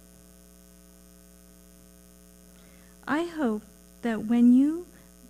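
Steady electrical mains hum with its overtones. A woman's voice starts reading aloud about three seconds in.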